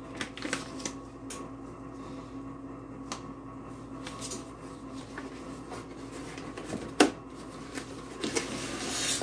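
Paper leaflet and cardboard packaging being handled: soft rustles and scattered light taps, with one sharper knock about seven seconds in, over a faint steady hum.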